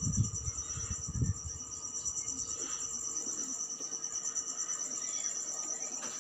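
Crickets trilling steadily in a fast, even, high-pitched pulse. A few low bumps come in the first second and a half.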